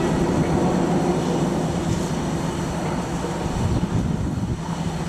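Steady low rumble of an approaching train's diesel locomotives, heard from out of sight.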